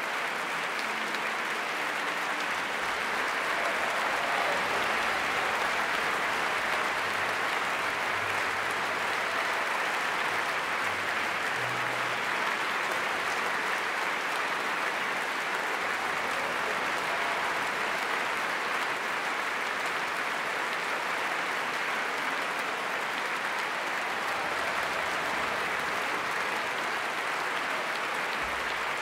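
Concert-hall audience applauding: dense, even clapping that swells slightly a few seconds in and then holds steady.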